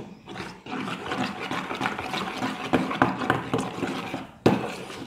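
Water being poured and splashing into a bowl of clear glue for slime, with a few sharp knocks, the loudest near the end.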